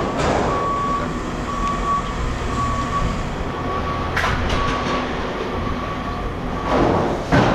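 Heavy machinery running with a low rumble while a reversing alarm beeps about once a second. Two sharp clanks stand out, one about four seconds in and a louder one near the end.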